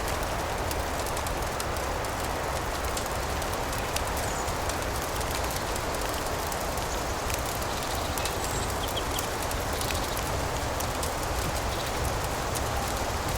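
Layered nature ambience: steady rain hiss with a fine, continuous crackle of small ticks, like a fireplace, and a few faint bird chirps.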